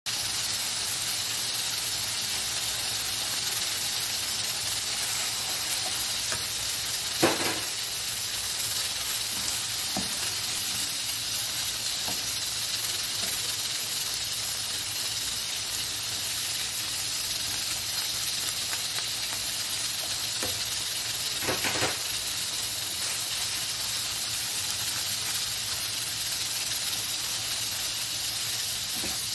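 Diced chicken sizzling steadily in oil in a nonstick frying pan, stirred with a plastic spatula that scrapes and knocks against the pan now and then, loudest about seven seconds in and again about twenty-two seconds in.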